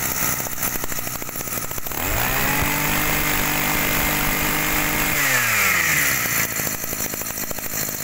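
Robin EC025G 25cc two-stroke brush cutter engine idling, revved up about two seconds in, held at high speed for about three seconds, then let back down to idle.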